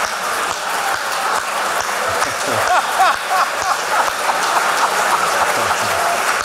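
Audience laughing and applauding: a dense patter of hand claps mixed with laughter.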